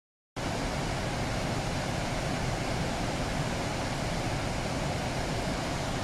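A large river waterfall in spate after heavy rain: a steady, dense rush of water that cuts in a moment in and holds level.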